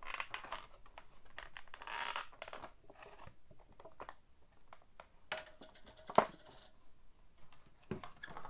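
Clear plastic packaging tray rustling and clicking as a toy figure is worked loose from it, in scattered short bursts with one sharp click about six seconds in.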